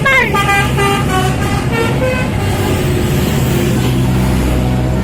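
Bus 'telolet' Basuri musical horn playing a quick tune of stepped notes. It opens with a falling slide and stops about two seconds in, over the steady low rumble of a bus engine running.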